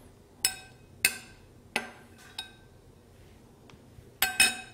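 Metal spoon clinking against a ceramic bowl while working avocado: about six short ringing clinks, the last two close together near the end.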